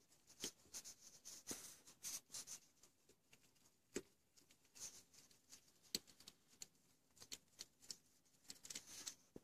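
Faint, irregular clicks and rustling of a gloved hand and tool working at the spark plug of a Honda Elite 110 scooter engine, as the plug is taken out.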